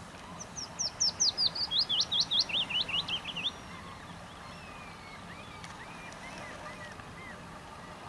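A small songbird sings one song of about three seconds: a fast series of sharp down-slurred notes that steps down in pitch as it goes. A few fainter bird calls follow, over a faint steady low hum.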